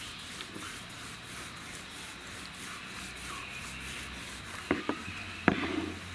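Wooden rolling pin rolling wheat parotta dough thin on a smooth work surface: a soft, steady rubbing swish in even strokes. Near the end come a few sharp wooden knocks, the loudest as the pin is set down.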